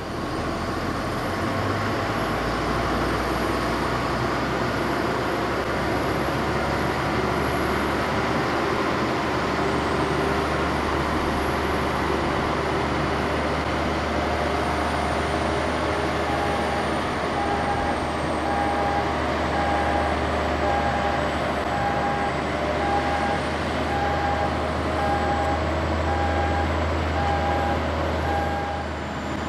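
Boeing 787-8 airliner being pushed back by a towing tractor: steady jet-aircraft and tug engine noise with a low hum. From about halfway a beeping warning tone repeats roughly once a second.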